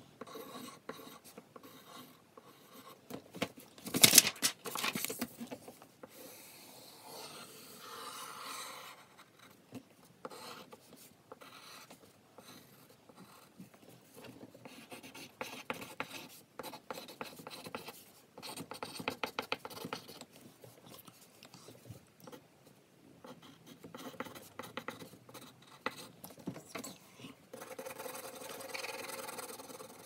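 Pen or pencil scratching on paper in quick, irregular strokes while drawing, with one louder, sharp knock about four seconds in.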